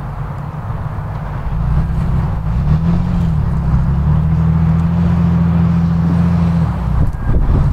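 Off-road 4x4's engine revving under load as it crawls over rocks. The revs climb about two seconds in, dip briefly, hold high for a few seconds, then fall away near the end.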